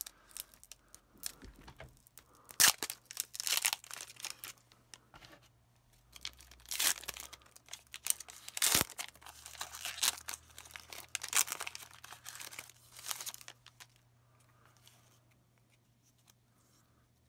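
Pokémon booster pack's foil wrapper being torn open and crinkled: a run of rips and crackles lasting about twelve seconds, dying away near the end.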